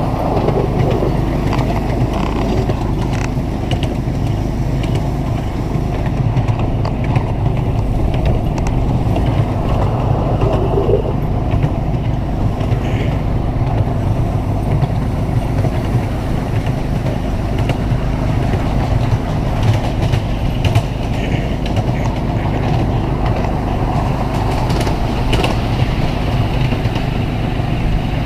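Ride-on miniature railway train running along its track, heard from the carriages: a steady engine hum mixed with running noise.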